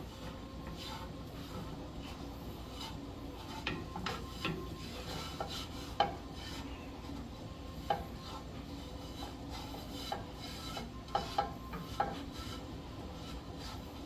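A spatula stirring and scraping a thick, gritty paste of potassium nitrate and melted sorbitol rocket propellant around a nonstick frying pan. There are irregular sharp knocks of the spatula against the pan, the loudest about six seconds in.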